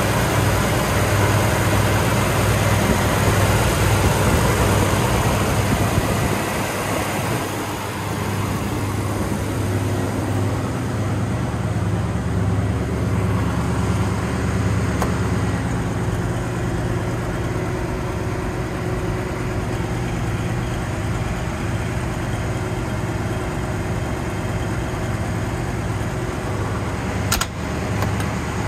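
1955 Ford F-250's Power King V8 idling steadily with an even low pulse, a little fainter after about seven seconds. A short click sounds near the end.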